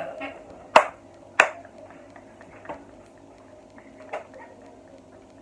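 Two sharp hand claps about two-thirds of a second apart, then a couple of fainter taps, during a bout of laughter.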